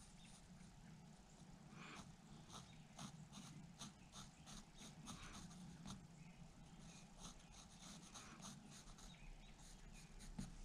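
Pencil scratching faintly on a basswood block in many short strokes, over a faint steady low hum.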